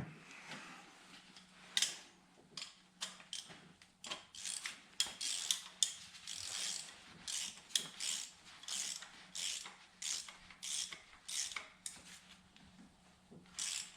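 Hand ratchet wrench clicking in short back-strokes, about two a second, turning a spark plug in the Pentastar 3.6L V6's cylinder head.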